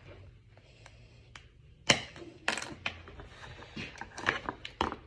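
A black plastic packaging tray clicking and knocking as a file is pried out of it on a wooden bench: a series of sharp separate clicks, about six, starting about two seconds in.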